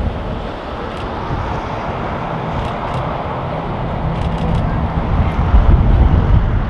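Jet noise from an approaching Airbus A330neo's Rolls-Royce Trent 7000 turbofans on a low, gear-down pass: a steady rushing rumble that grows louder about five seconds in.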